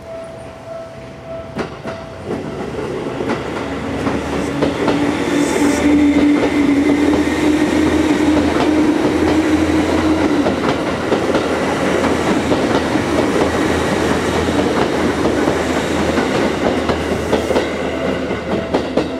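Seibu 10000 series Red Arrow limited express train passing close by: wheels clicking over rail joints and points, with a steady hum from about four to ten seconds in. The sound swells from about two seconds in and stays loud until the last cars pass near the end.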